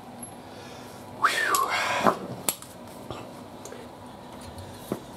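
Metal hand tools clattering and clicking against a motorcycle engine as a torque wrench and socket are lifted off the clutch hub nut. There is a short scraping sound about a second in, then a few sharp clicks.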